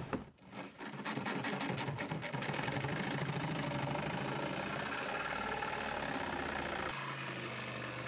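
Electric jigsaw cutting through a fiberglass sailboat deck, starting about a second in and running steadily as it cuts.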